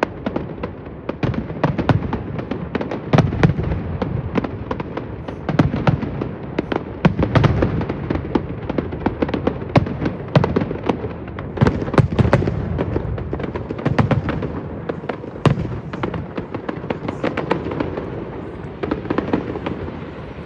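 Fireworks display: a dense, continuous barrage of shell bursts and crackling bangs, with deep booms repeating every second or so, easing off near the end.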